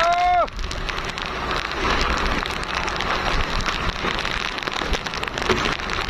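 Strong wind and water noise aboard a small outrigger fishing boat in a storm at sea: a steady rushing hiss full of fine crackles on the phone's microphone. A short voice call falls away in the first half second.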